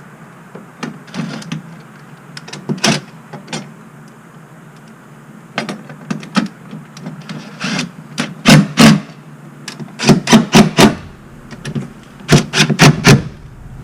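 Sharp clicks and knocks from hand work on the tow mirror's mounting bolts and bracket, scattered at first, then in quick runs of four or five, loudest in the second half.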